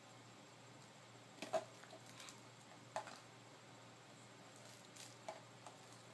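A quiet room with a few faint, short knocks and rustles as a baby handles and mouths a hard plastic toy.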